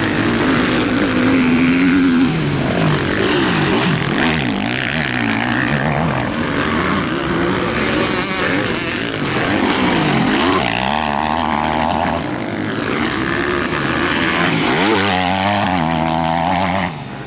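Motocross bike engines revving hard, their pitch rising and falling in repeated sweeps as the bikes accelerate out of corners and back off.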